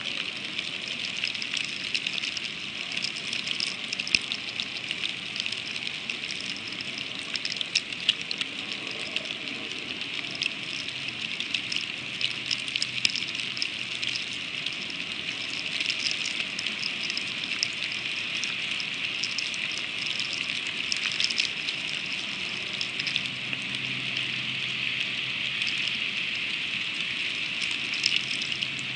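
Freezing rain falling steadily on the eagle nest, a continuous hiss with many small ticks as drops and ice pellets strike sticks, feathers and the microphone. A low hum joins in near the end.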